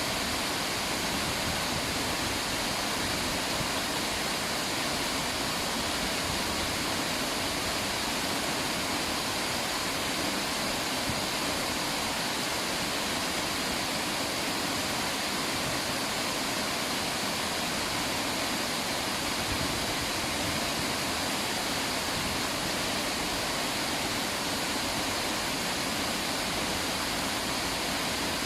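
River water flowing, a steady rush that holds at one level without breaks.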